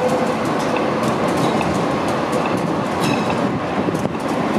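Stadtwerke Bonn light-rail tram passing close by on street track: a steady, loud rumble of steel wheels on the rails, with scattered clicks as the wheels run over the track.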